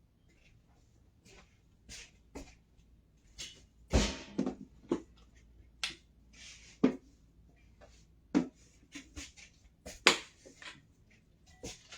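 Irregular clicks and knocks, a dozen or so, with a louder knock about four seconds in.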